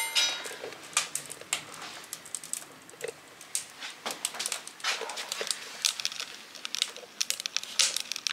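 Wood fire crackling and popping in the firebox of a Clasica Lacunza wood cook stove: many irregular sharp snaps. This much crackling is the sign that the fire has caught and is starting to burn well. A brief ringing clank sounds right at the start.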